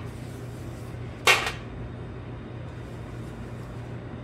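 One short clatter of kitchenware being handled, about a second in, over a steady low hum.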